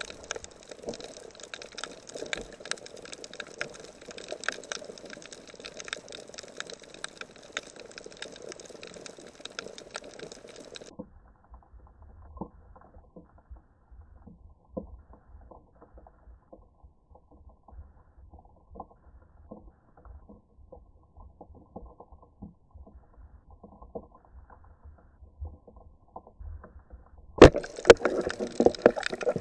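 Water splashing and sloshing around a diver's camera, dulled to a muffled underwater crackle of clicks over a low rumble after about eleven seconds. The louder splashing returns near the end as the camera breaks the surface again.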